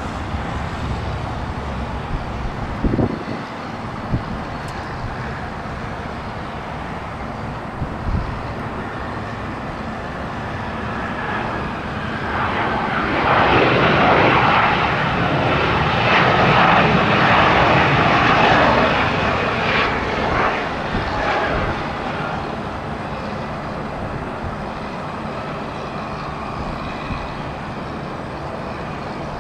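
Bombardier CRJ-550 regional jet's twin rear-mounted turbofans passing on landing: the jet noise swells to its loudest about halfway through with a falling whine, then fades away.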